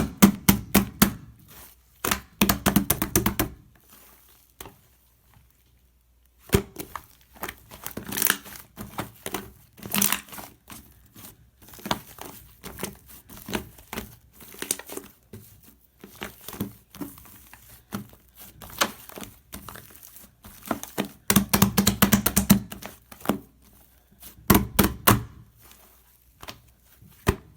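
Slime being squished and worked, giving dense runs of crackling clicks and wet pops in bunches, with a pause of about two seconds a few seconds in.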